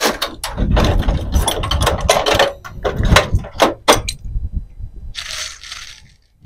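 Metal hand tools clattering and clinking as they are rummaged through and picked up from the pile, many quick knocks over a low handling rumble for about four seconds, then a brief rustle about five seconds in.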